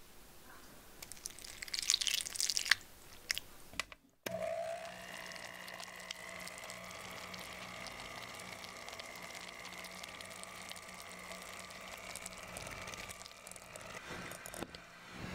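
Electric hand mixer beating cream cheese in a glass bowl. About four seconds in, the motor starts with a brief rising whine and then runs at a steady pitch. Before that come irregular scratchy noises with a few sharp clicks.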